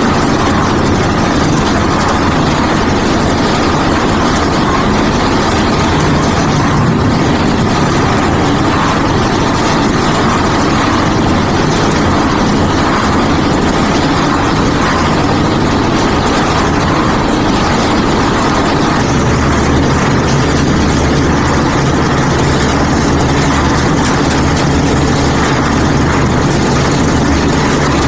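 Concrete mixer with hopper running, its engine going steadily under a continuous mechanical din. The low hum grows stronger about two-thirds of the way through.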